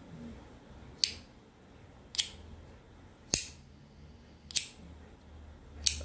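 Compoform Argyle v1.1 tracked fidget slider being worked back and forth along its track, the metal slider snapping against its strong magnets at each end with a sharp click: five clicks about a second apart.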